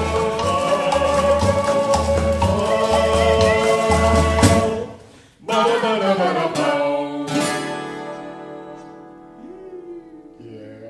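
Closing bars of a children's song played by a small acoustic band, with guitar, voices and a steady drum beat. The music breaks off about four and a half seconds in, then ends on two final chords that ring and fade away.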